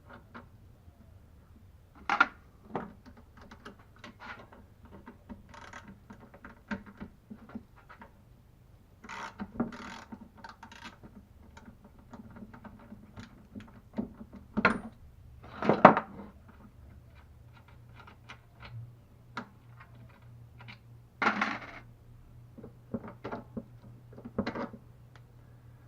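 Hand tools and metal chainsaw parts clinking, tapping and scraping as an old Tecumseh AH58 chainsaw is taken apart: scattered irregular clicks and knocks with a few short scrapes, the loudest knocks about two-thirds of the way through, over a faint low hum.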